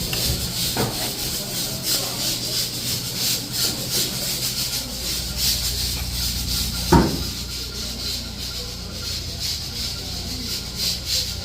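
Hands-on work on a commercial refrigerator door: repeated rubbing and scraping over a steady hum, with one sharp knock about seven seconds in.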